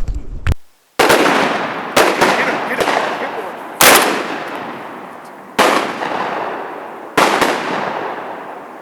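A volley of about six shotgun shots from several duck hunters' guns, spaced irregularly a second or two apart, each with a long echo fading across the water.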